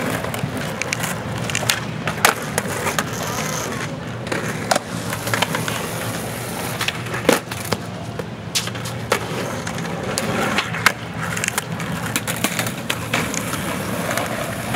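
Skateboard wheels rolling on concrete, with repeated sharp clacks of boards striking the pavement.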